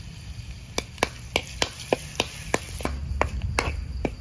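Metal ladle knocking and scraping against a metal wok, about three sharp clinks a second, as a chopped mixture is stirred and fried in oil.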